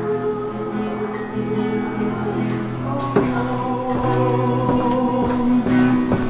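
Music of long held chords, with singing, changing to a new chord about three seconds in.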